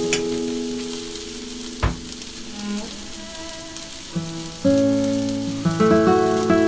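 Rice frying in a pan with a steady light sizzle, under plucked-guitar background music that drops away in the middle and comes back strongly near the end. A single sharp knock about two seconds in.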